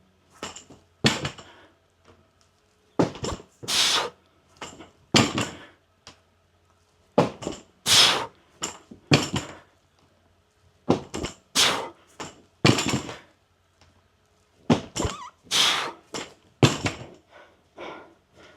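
A man breathing hard and sharply in and out through a set of barbell lifts, with a breath or pair of breaths every one to two seconds.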